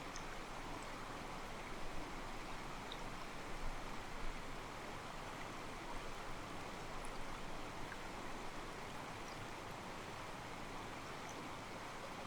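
Mountain stream flowing over rocks, a steady soft rush with small splashes and sloshes, a few a little louder between about two and four seconds in.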